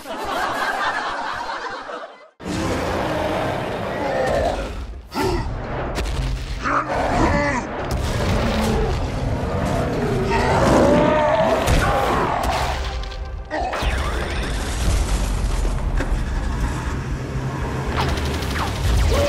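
Edited soundtrack of background music with booming explosion and blaster-fire sound effects, and gliding, roar-like effects in the middle.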